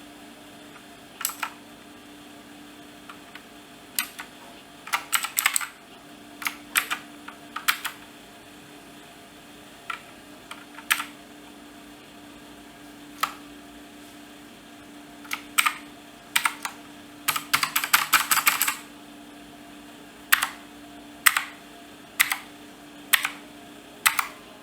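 Clicky Gateron Blue mechanical keyboard switches being pressed: irregular keystrokes, some single, some in short quick runs, with one longer rapid run of typing about two-thirds of the way through.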